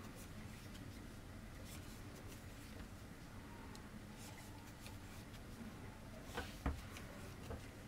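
Faint rustle and soft ticks of a crochet hook pulling yarn through stitches while working a round of single crochet, with a couple of louder taps about six and a half seconds in.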